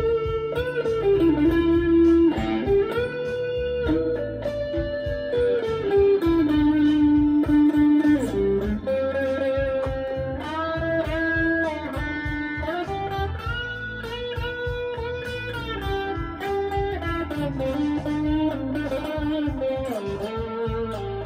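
Electric guitar playing single-note lead lines with string bends and slides over a backing track of bass and drums, in a blues-rock style.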